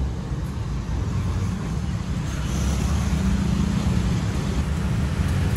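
KAI CC 203 diesel-electric locomotive running steadily as it pulls away into the station, a continuous low rumble.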